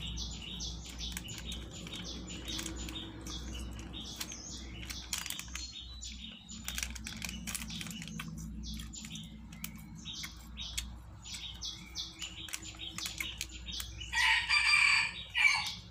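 Small birds chirping in short, quickly repeated notes, with a rooster crowing once, loud, near the end.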